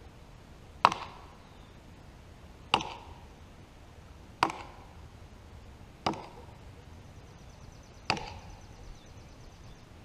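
Axe chopping into the trunk of a large standing tree: five sharp strokes, about one every two seconds, each dying away quickly.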